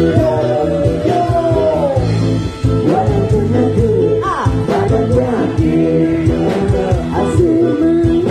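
Live band music: voices singing into microphones over electric guitar and a steady beat.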